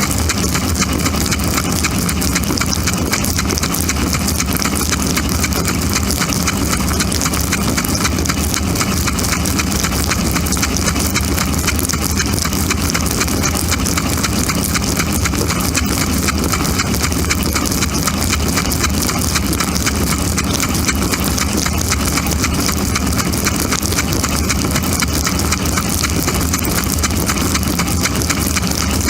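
Dishwasher running a wash cycle, heard from inside the machine: the steady hum of the circulation pump motor under a continuous rapid pattering and hiss of water jets spraying against the camera.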